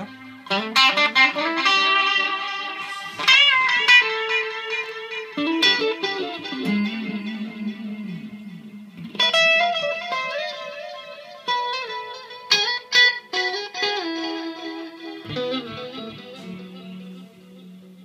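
Electric Stratocaster-style guitar played through a Yerasov Bulldozer EL34 50-watt valve amp head with the Yerasov D-Seed digital delay pedal in the chain: short phrases of picked notes and chords, each ringing out and fading, with new phrases struck about every two to four seconds.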